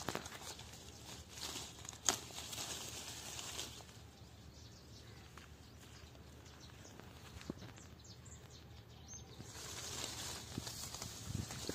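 Leaves of a sweet lime tree rustling as hands push through the branches and handle the fruit, with scattered small clicks and a sharper one about two seconds in.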